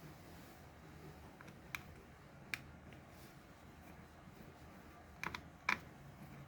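A few light, sharp clicks and taps of small hard parts being handled while a Nao robot's torso is taken apart: two single clicks, then a quick pair and a louder click near the end, over a faint low hum.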